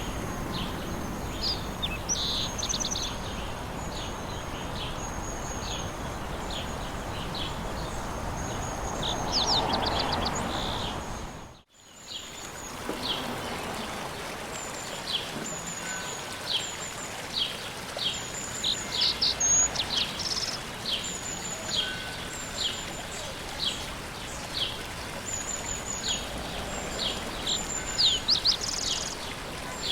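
Outdoor ambience of small birds chirping over a steady background hiss, with short high calls repeating throughout. The whole bed cuts out for a moment about twelve seconds in, then resumes.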